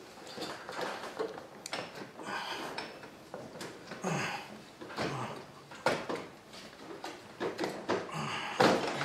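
Irregular metallic clinks, knocks and scrapes of a replacement alternator being worked down into a tight engine bay and against its mounting brackets. The loudest knocks come near the end.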